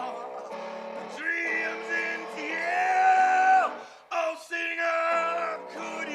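A song performed by a solo singer-songwriter: a male voice sings long notes that slide up and down, over guitar.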